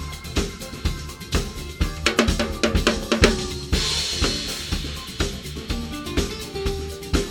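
Drum kit played in an up-tempo samba groove along to a recorded acoustic-guitar smooth-jazz track. A busy run of strokes about two seconds in leads into a cymbal crash about four seconds in.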